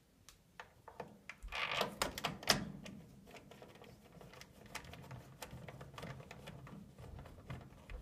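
Scattered light clicks and rattles of hands fitting a replacement furnace draft inducer blower and its wiring into place, with a louder run of clicks about two seconds in.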